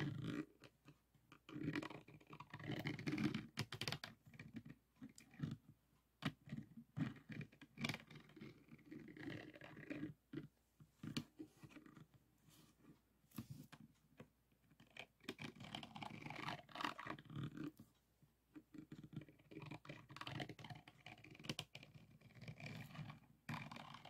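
Pink plastic diamond-painting pen scraping and tapping across the rows of faceted drills on a finished diamond painting: faint, irregular crackly scratching strokes with scattered sharp clicks.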